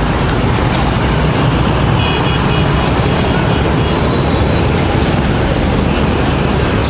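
Steady, loud street traffic noise with a heavy low rumble. A brief, faint high beeping comes about two seconds in.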